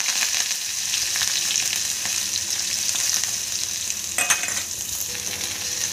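Green chillies, curry leaves and ginger-garlic paste sizzling in hot oil in a steel kadhai, a tempering for kadhi. A steady hiss, with a brief burst of crackling about four seconds in.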